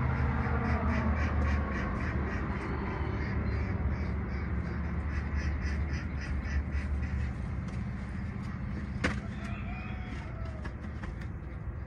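Morning farmyard ambience: birds calling over and over in the background, over a steady low rumble. A single sharp click sounds about nine seconds in.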